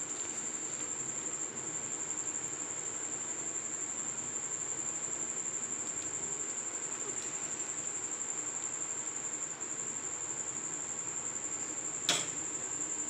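A cricket chirping in a steady, fast-pulsing high trill, with one sharp click near the end.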